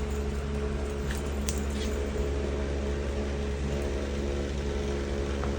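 A steady low machine hum with several fixed tones, and a few faint clicks about a second in.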